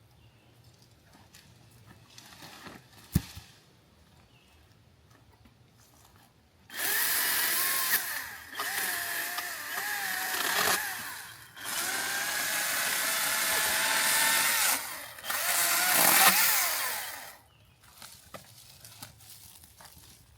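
Echo electric pruning saw cutting wood in four runs of two to three seconds each, over about ten seconds, with short breaks between them; its motor whine wavers in pitch as the chain bites. A single sharp knock comes a few seconds before the cutting.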